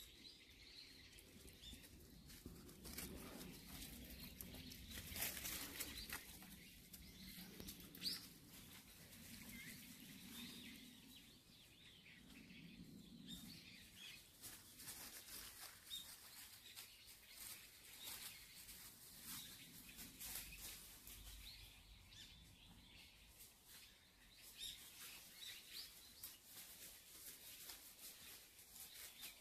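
Near silence: faint rustling and footsteps in dry leaves and brush, with a few faint bird chirps.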